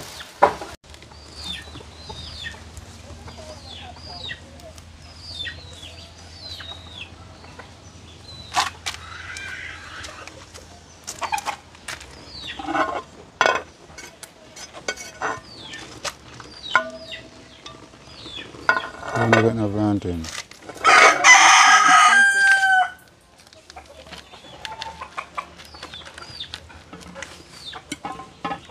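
A rooster crows once, a long call of about three seconds and the loudest sound, about two-thirds of the way through, among chicken clucks. Earlier comes a run of short, high, falling chirps, with scattered clicks and knocks.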